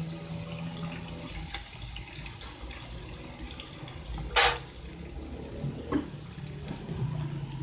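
Sliced onions sizzling in hot oil in a large aluminium pot while a metal spoon stirs them, with one sharp clink of the spoon against the pot about halfway through and a lighter one about a second later.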